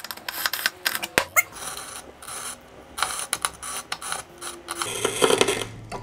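Glass bottle turned by hand against the steel scoring wheel of a bottle-cutter jig, the wheel scratching a score line into the glass with irregular crackling clicks. About five seconds in, a denser scraping and clatter as the bottle slides on the jig's rollers and is lifted out.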